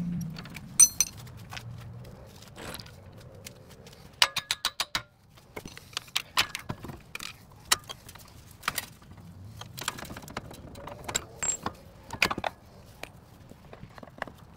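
Metal hand tools and parts clinking and knocking against the steel suspension and hub of a car's front wheel well, with a quick run of about six metallic taps around four seconds in and scattered knocks and clicks throughout.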